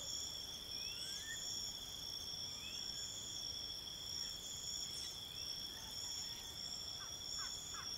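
Steady high-pitched insect chorus, several continuous tones with the highest pulsing on and off every second or so. A few short rising chirps sound over it, and a cluster of brief calls comes near the end.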